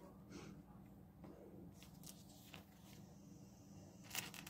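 Faint, scattered clicks of small plastic Lego bricks being picked up, handled and pressed together, with a slightly louder click about four seconds in.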